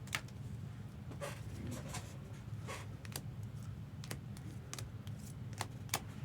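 Trading cards being handled and slid into plastic sleeves and cases: scattered soft clicks and rustles, about eight in all, over a steady low hum.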